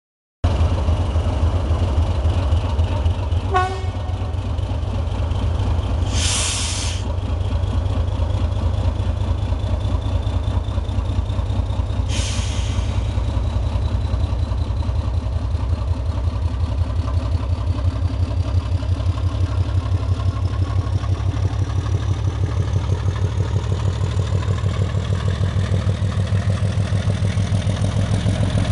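Diesel locomotive engine running with a steady, rapid low throb, while a thin whine climbs slowly in pitch throughout. Two short bursts of hissing air break in about six and twelve seconds in, and a brief high tone sounds a few seconds in.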